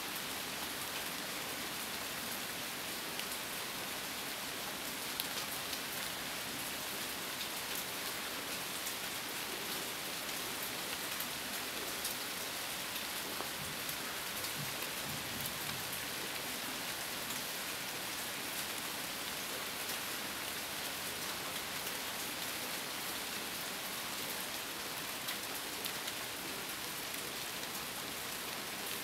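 Steady rain falling: an even hiss with many small drop ticks on top, unchanging throughout.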